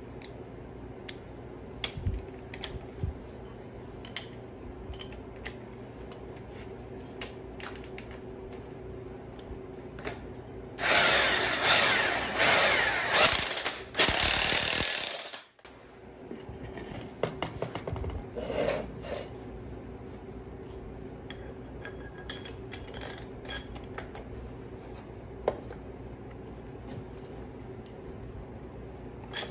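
A power tool driving a long socket extension on the nut at the end of a removed car strut runs in several surges for about four seconds, then cuts off suddenly. Scattered clinks and knocks of metal tools and parts on a concrete floor come before and after.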